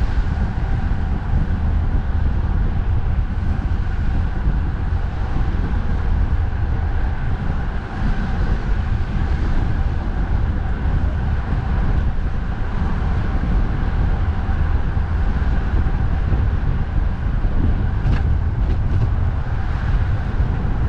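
Wind buffeting the microphone in a steady low rumble, with road traffic running beneath it.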